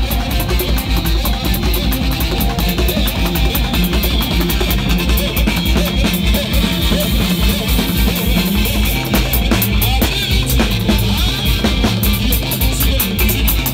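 Live band playing: drum kit with cymbals keeping a steady, fast beat, electric bass guitar and electronic keyboards.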